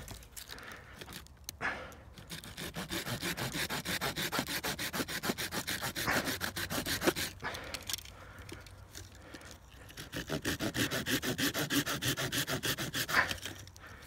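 Small hand saw cutting a notch into a green stick in rapid back-and-forth strokes: one bout of sawing, a brief pause while the stick is turned, then a second bout.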